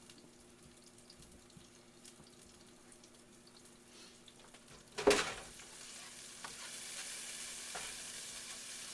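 Food frying in a skillet: a faint sizzle at first, then a sudden clatter about five seconds in, after which a louder, steady sizzle sets in.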